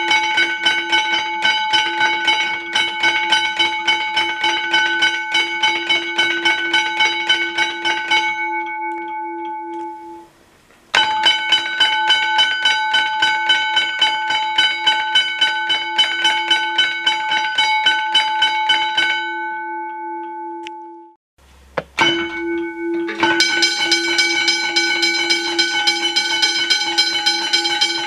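Aluminium teardrop railway crossing bell rung rapidly by its electromagnet-driven hammer, about four strikes a second. It stops twice and rings out for a second or two each time, then starts again.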